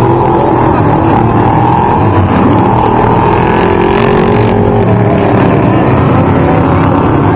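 Off-road race vehicles' engines running loudly and continuously, their pitch rising and falling as they rev.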